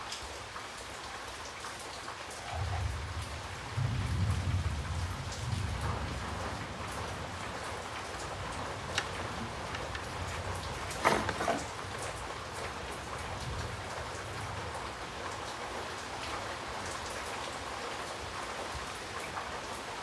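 Steady hiss like rain falling, with a low rumble from about two and a half to seven seconds in and a few sharp clicks about halfway through.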